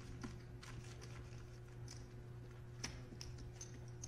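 Faint, scattered clicks of poker chips being handled at the table, over a low steady hum.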